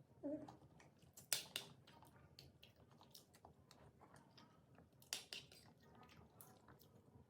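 Close-miked mouth sounds of eating soft durian pengat with glutinous rice: quiet wet chewing and lip smacks, with louder smacks about a second and a half in and again about five seconds in.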